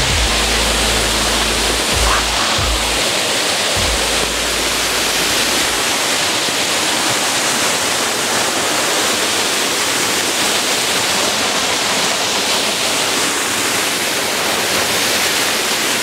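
Wolf Cleuch waterfall pouring over rocks into a pool: a loud, even rush of falling water. A low rumble sits under it for the first six seconds or so, then stops.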